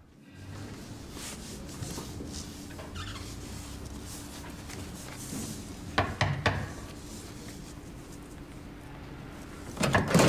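Knuckles knocking on a heavy carved wooden door: a few raps about six seconds in and another louder set near the end, over a faint steady low hum.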